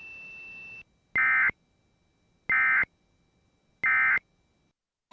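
Three short, identical Emergency Alert System SAME End of Message (EOM) data bursts: harsh, buzzy digital tones about a third of a second long and a little over a second apart, marking the end of an alert. A faint hiss with a thin steady tone comes before them in the first second.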